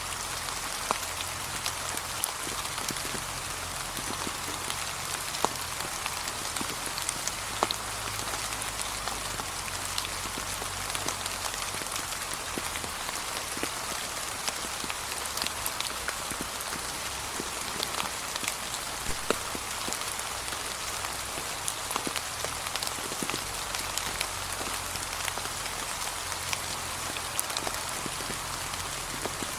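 Steady, gentle rain falling on a path covered in fallen autumn leaves: an even hiss with many separate drops ticking on the surface.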